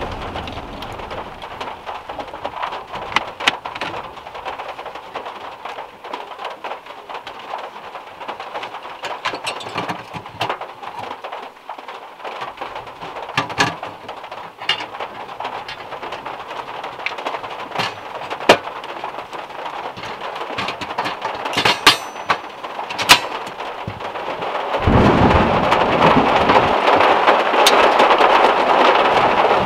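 Rain pattering on a VW Beetle's metal roof and windows, with scattered sharp clicks and knocks, a few loud ones shortly before the stove lights. About 25 seconds in, a portable cartridge gas stove's burner lights and a louder, steady hiss of the gas flame takes over.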